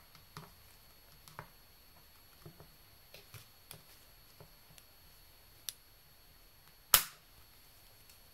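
Flat screwdriver tapping and clicking against a fuel injector's metal retaining clip on a GM 3.6 LFX direct-injection fuel rail while prying at it. There are scattered light metallic clicks and one sharp, loud snap just before seven seconds in, with the clip still not coming free.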